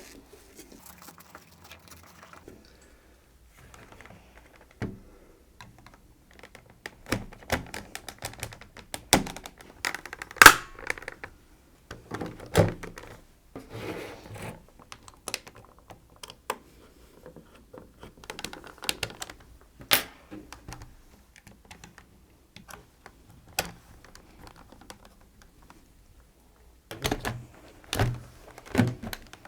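Plastic parts of a Dyson V6 stick vacuum being handled and clicked back together: an irregular run of small clicks, taps and knocks, with busier stretches and the loudest knock about ten seconds in.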